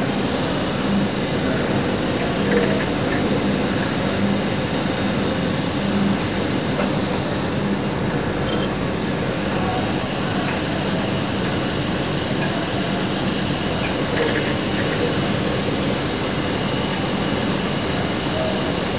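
Drilling machine cutting holes through a 20 mm thick 904L stainless steel baffle plate under a stream of coolant: a steady, even machining noise.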